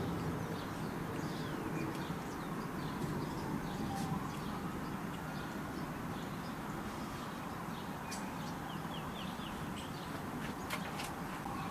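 Distant outdoor warning siren wailing faintly, its pitch slowly falling and then rising again, while birds chirp over a steady outdoor background.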